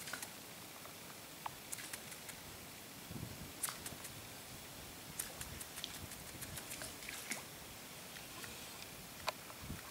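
Quiet mangrove waterside ambience: a steady hiss with irregular, scattered sharp clicks and ticks, the loudest a little under 4 seconds in and near the end.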